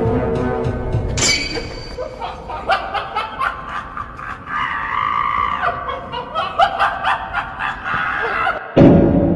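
Slowed-down, reverberant meme sound effects: a high pitched sound about a second in, then short clicks and voice-like snickering and laughter, ending in a sudden loud low hit near the end.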